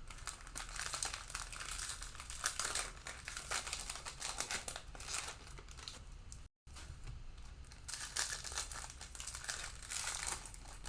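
Cellophane wrapper of a Panini Mosaic football card cello pack crinkling and tearing as the pack is opened and handled, a dense crackle of fine clicks, broken by a brief gap in the audio about two-thirds of the way through.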